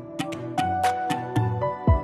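Background music: an instrumental tune of pitched notes over a steady beat, with a deep, falling low note near the end.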